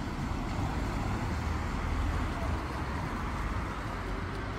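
Steady traffic noise, with a car driving along a wet street.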